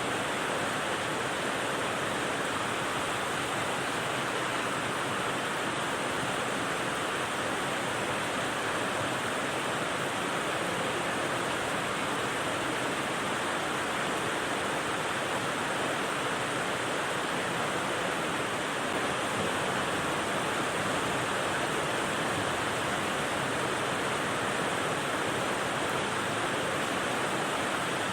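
Rain white noise: a dense, even hiss of rain with no single drops or gusts standing out, holding steady throughout.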